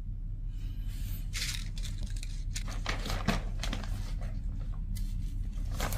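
A clear plastic bag rustling and crinkling in stops and starts as it is handled, with a few light clicks of small sequins.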